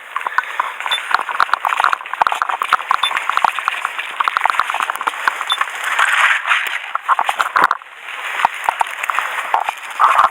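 Airsoft guns firing: runs of sharp, rapid clicking shots, with BBs clinking on hard surfaces.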